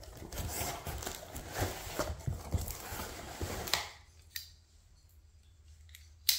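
Utility knife slicing packing tape along a cardboard box, with scraping and crackling as the blade runs through the tape, and the cardboard flaps folded open. It then goes quiet apart from a tick, and a sharp click near the end.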